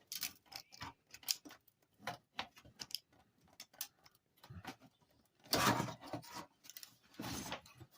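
A flathead screwdriver prying at a clipped-in gold contact strip on a TV circuit board: scattered light clicks and ticks of metal on board, with two louder, longer scrapes about five and a half and seven seconds in.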